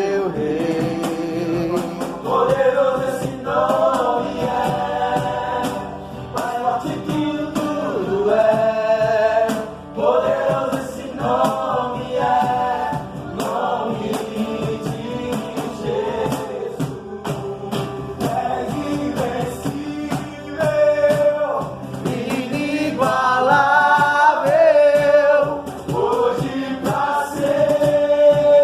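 Gospel worship music: voices singing a slow, drawn-out melody over a sustained keyboard accompaniment.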